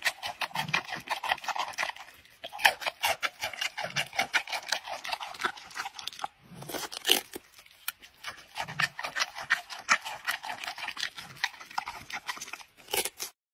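Giant panda chewing on a pumpkin: a fast, continuous run of chewing clicks that pauses briefly twice around the middle.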